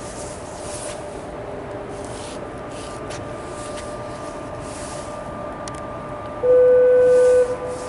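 A steady rumbling background with a faint hum. About six and a half seconds in comes a loud, steady, single-pitched horn blast lasting about a second, which then carries on more faintly.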